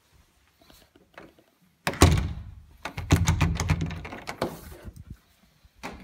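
Interior door with a knob latch being worked and pushed shut: a loud thunk about two seconds in, then a quick run of clicks and knocks as the knob turns and the latch catches.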